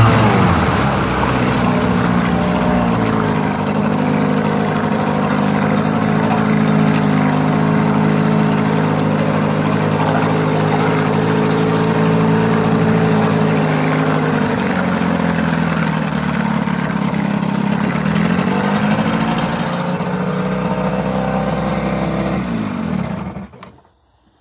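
Johnson 15 hp two-stroke tiller outboard running with its propeller in a test tank of water. Engine speed falls off in the first couple of seconds, holds steady, sags and picks back up about two-thirds of the way through, then the engine shuts off suddenly near the end.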